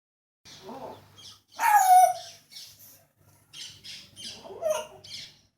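African grey parrot calling and squawking in a string of short calls, the loudest about two seconds in with a falling note.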